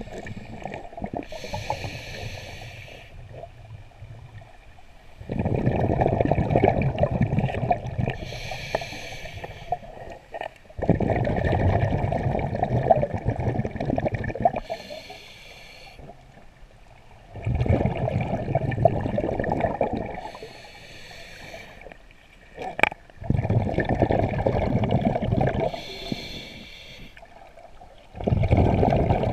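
Scuba diver breathing through a regulator underwater: a short hiss on each inhale, then a long, louder rush of exhaled bubbles, about five breaths in a steady rhythm. A single sharp click near the end.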